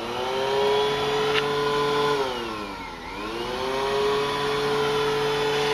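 A small high-speed motor whining steadily. Its pitch drops in the middle and climbs back up about a second later, over a low steady hum.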